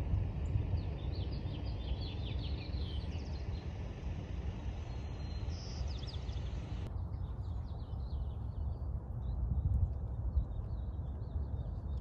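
Wind rumbling on the microphone, with small birds chirping and twittering throughout. The background changes abruptly about seven seconds in.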